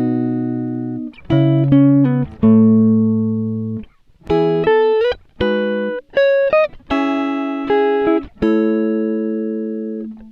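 Background music: a guitar striking chords one after another and letting each ring out, with a few short slides between notes.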